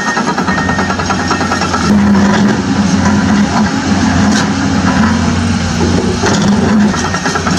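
Engine-like running sound of a Huina radio-controlled toy excavator driving on its tracks. It is steady, with a deeper hum that comes in about two seconds in.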